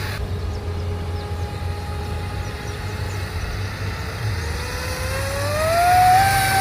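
Electric motor and propeller of a small RC seaplane whining steadily at low throttle as it taxis on the water, then rising in pitch and getting louder over the last couple of seconds as the throttle is opened.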